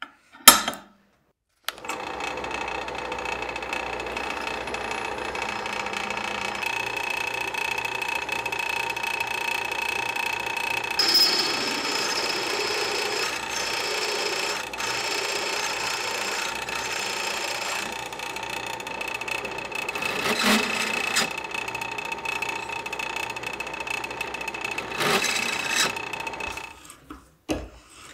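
Drill press running with its bit cutting into a steel plate, a steady whine holding several pitches with a few brief louder flare-ups. A single sharp knock comes just before the drill starts.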